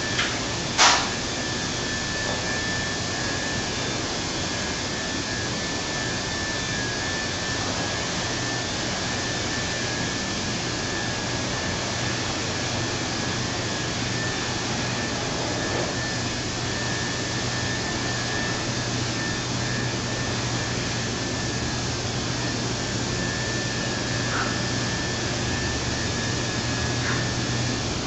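Steady rushing noise with a faint high whine, broken by a sharp knock about a second in as a frameless glass door panel is moved along its track, and a couple of faint clicks near the end.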